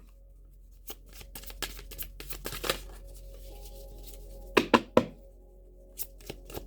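A tarot deck being shuffled by hand: a quick run of soft card flicks, then three louder sharp card snaps about two-thirds of the way in and a few more near the end.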